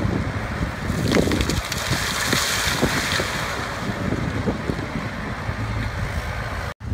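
Wacker Neuson ET90 excavator's diesel engine running as the machine works, under the steady rush of river water pouring over rocks and wind buffeting the microphone. The sound cuts out for an instant near the end.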